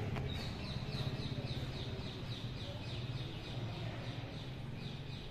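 A bird calling a rapid series of short, high, falling chirps, about three a second, over a low steady hum.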